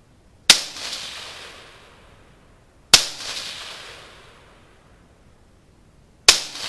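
Three single shots from an AR-15 pistol chambered in .223, slow and unevenly spaced, about two and a half and three and a half seconds apart. Each sharp crack is followed by a long echo that dies away over a second or more.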